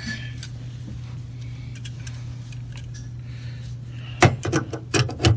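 A steady low hum, then from about four seconds in a few sharp metallic clicks and clanks from adjustable pliers being brought onto a brass gate valve's packing nut.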